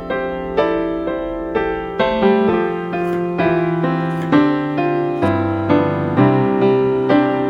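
Background piano music: notes struck about twice a second over a slowly moving bass line.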